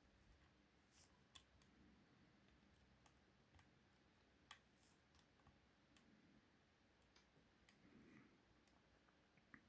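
Faint, irregular metal clicks of a short hook pick working the pin stack of a 5-pin euro cylinder lock held under a tension wrench, about nine scattered ticks.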